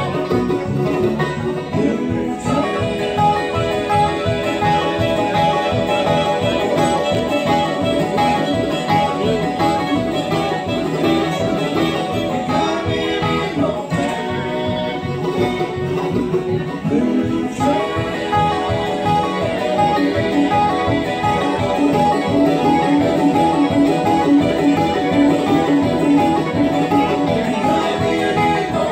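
Live bluegrass band playing at a steady driving tempo: banjo, resonator guitar (dobro), mandolin, fiddle and acoustic guitar together.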